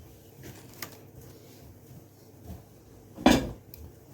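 Kitchenware being handled: a few light clinks and one loud knock about three seconds in.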